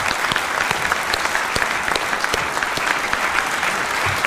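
Large audience applauding steadily, many hands clapping at once in a continuous round of applause.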